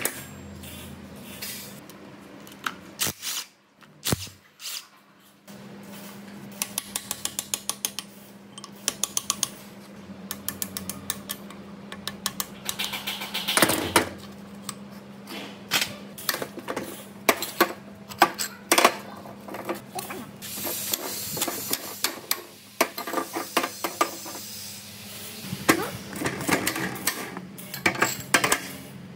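Metal tools clinking, tapping and knocking against metal parts, with a quick run of even clicks and stretches of hissing scraping, over a steady hum.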